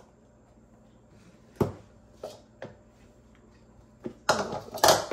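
Flour being scooped with a measuring cup and tipped into a mixing bowl: a knock about one and a half seconds in, a couple of light clicks, then a louder scrape and rustle near the end.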